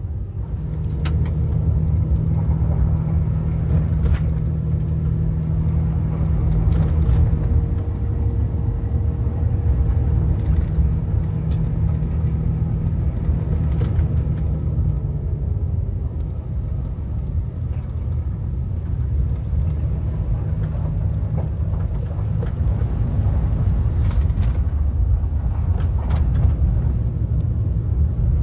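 Truck driving with a low, steady rumble and a held engine note; the engine note drops away about halfway through.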